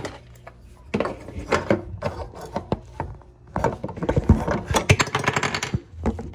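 Handling noise as a phone is fiddled with and propped up against things: a run of knocks, taps and rubbing of hard objects, densest in the second half.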